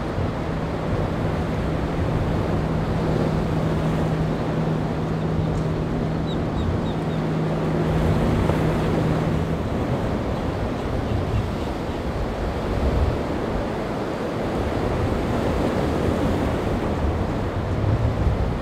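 Waves and surf washing in the inlet, with wind buffeting the microphone. A steady low hum from a passing boat's engine runs under it and ends a little past halfway.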